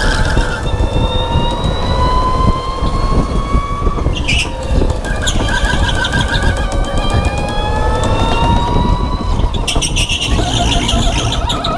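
Electric go-kart's motor whining, its pitch climbing steadily as the kart accelerates, then dropping off about four seconds in and again near the end as it slows into a turn. A heavy rumble of tyres and chassis vibration runs underneath.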